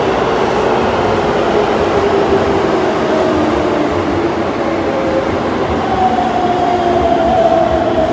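Keisei 3700 series train running into an underground platform, its Toyo GTO-VVVF inverter drive whining over the rumble of the wheels. The motor tones fall as it goes, and a higher tone comes in about six seconds in and slowly drops.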